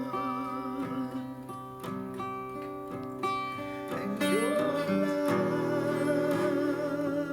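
Music led by acoustic guitar, with sustained held notes over it, growing louder about four seconds in.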